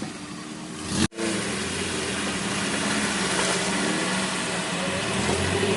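Off-road jeep engine running, a steady pitched drone under a rush of noise. About a second in the sound drops out for an instant and comes back louder.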